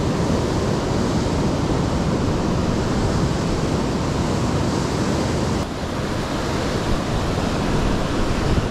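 Ocean surf washing in over a rocky shore: a loud, steady rush of water that eases slightly about five and a half seconds in, with wind buffeting the microphone.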